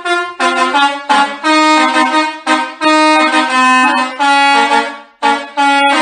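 Basuri telolet multi-tone air horn on a tour bus playing a tune: a string of loud, stepped horn notes, several sounding together, broken by short pauses between phrases.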